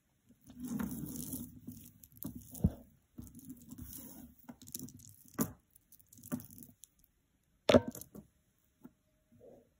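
Hands handling a metal chain necklace set with rhinestones. A stretch of rustling comes early, then a few sharp clicks of metal chain and stones, the loudest near the end.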